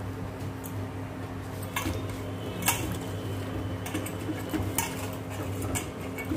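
Lemons being washed by hand in water in a stainless steel bowl: water swishing, with scattered knocks as the lemons and fingers hit the steel.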